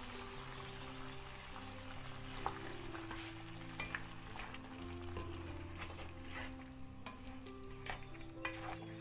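Mutton, tomatoes and spices sizzling in a hot pot as they are stirred with a wooden spoon, which clicks and scrapes against the pot now and then. Background music with held notes plays underneath.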